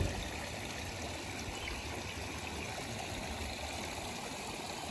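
Steady rushing noise of running water, like a stream.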